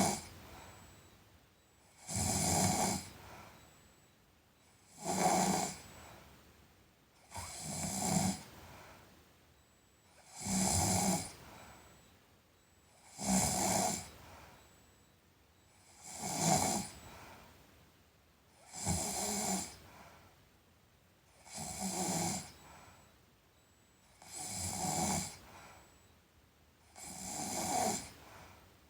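A sleeping person snoring in a slow, even rhythm: about ten snores, one every two and a half to three seconds, each lasting about a second.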